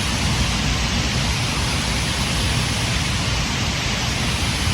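Water rushing through a spillway: a steady, even rush of noise.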